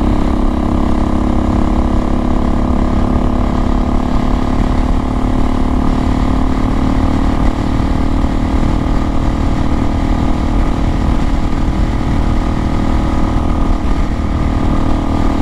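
Suzuki DRZ400S single-cylinder four-stroke engine, fitted with an FMF PowerCore slip-on exhaust, running steadily at constant revs while cruising in top gear.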